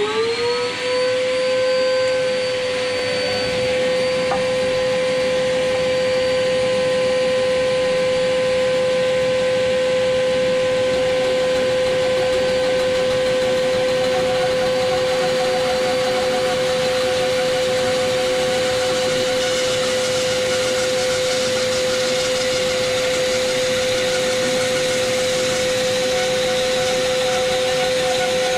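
Metabo BAS 318 bandsaw starting up, its whine rising quickly and settling into a steady running tone. In the second half, a hiss from its 19 mm, 4 TPI blade cutting into a 120 mm beech ball is added.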